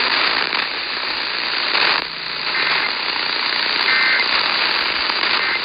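AM radio static: a steady hiss and crackle from a weak, band-limited AM signal with no programme audio, and two faint brief tones buried in it about a second and a half apart.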